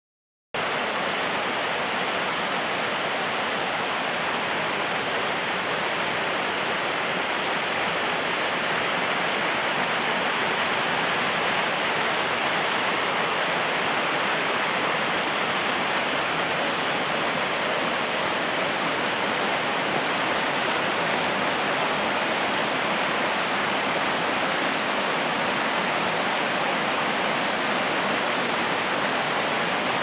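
Waterfall: a narrow single fall of water dropping over a rock ledge into a rocky stream, rushing steadily and evenly.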